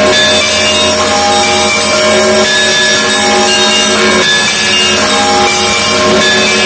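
Russian Orthodox church bells ringing together: many bells of different pitches struck in a dense, continuous peal, their tones overlapping without a pause.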